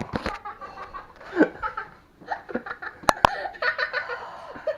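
People laughing and giggling, with two sharp clicks in quick succession about three seconds in.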